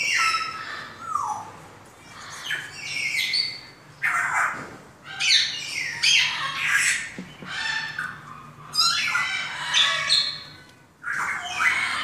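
Several kittens mewing over and over: shrill cries that slide down in pitch, coming in clusters with short pauses between them.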